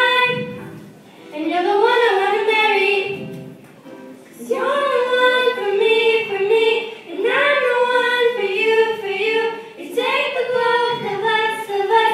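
Young girls singing a song together in sung phrases with long held notes and short breaks between them.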